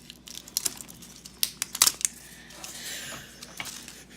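Plastic packaging of a 5 Surprise toy ball being handled and pulled open: scattered sharp crinkles and clicks, with a rasping tear about three seconds in.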